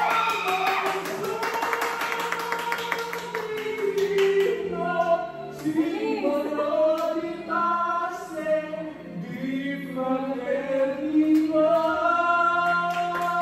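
Several voices, women and men, singing a song together.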